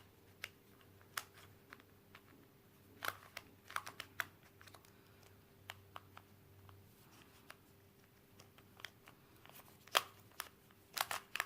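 Plastic Square-1 puzzle being turned by hand: scattered clicks of its layers snapping into place, a few at a time with pauses between.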